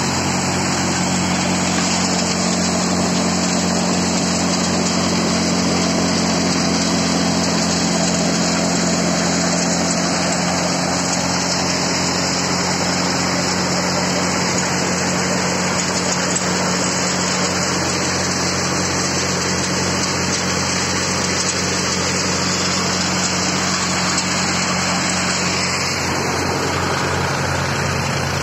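Tractor-driven multicrop thresher running steadily: the Farmtrac tractor's diesel engine holds a steady hum under the dense, even mechanical rush of the threshing machine. The hum shifts slightly near the end.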